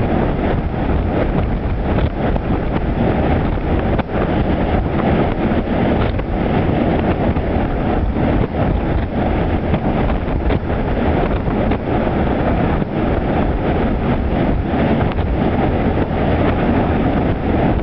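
Storm wind buffeting the microphone, a loud, steady rushing rumble.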